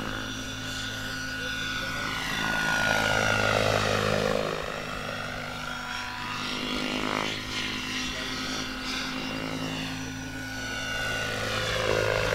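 Goblin Kraken 700 electric radio-control helicopter in flight: a steady rotor hum with a higher whine over it. The sound sweeps and swells as the model passes back and forth, loudest about three seconds in and again near the end.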